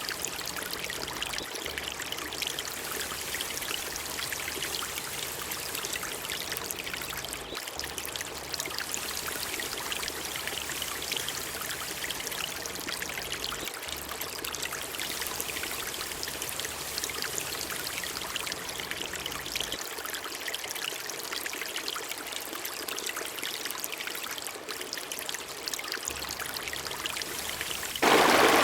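Water trickling and dripping steadily, with many small splashes. It turns suddenly louder near the end.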